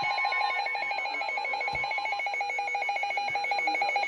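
Electronic emergency-alert tone pulsing rapidly, many short beeps a second at an even rate, with a faint low thud about two seconds in.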